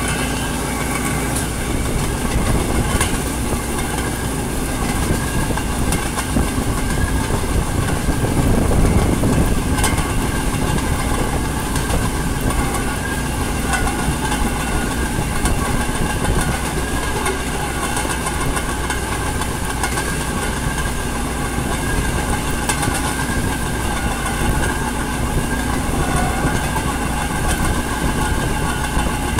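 Steady running noise of a narrow-gauge rail vehicle on the move, its wheels clicking over the rail joints.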